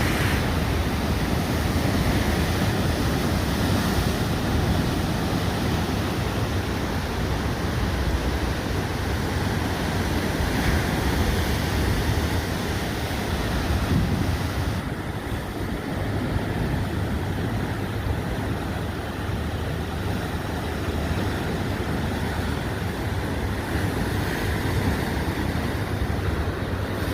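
Ocean surf washing steadily against a rocky shore, rising and easing a little as the waves come in, with wind rumbling on the microphone.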